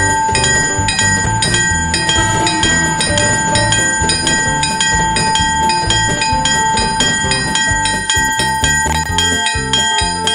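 Japanese railroad-crossing warning bell ringing in evenly repeated strokes, over background music with a bass line.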